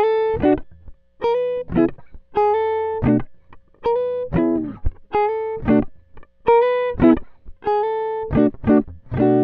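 Intro music: a plucked guitar phrase, a held note followed by a quick run of shorter notes, repeating about every 1.3 seconds.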